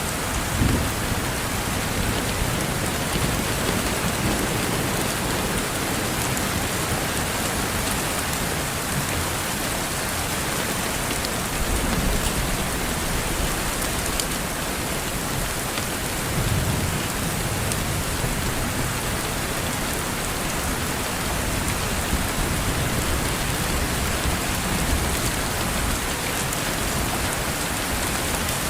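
Steady rain with raindrops hitting window glass, an even hiss, with a few brief low rumbles underneath.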